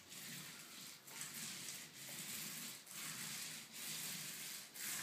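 Medium-pile paint roller rolling wet emulsion onto a wall: a steady sticky hiss that dips briefly about once a second as each stroke turns.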